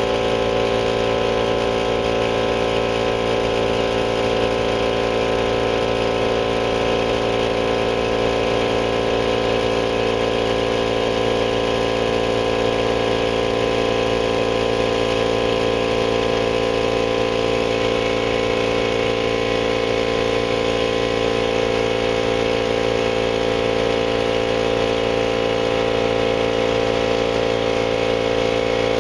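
Central Pneumatic 2.5 horsepower, 10-gallon oil-lubricated air compressor with a direct-drive induction motor running steadily, its pump filling the tank as the pressure climbs.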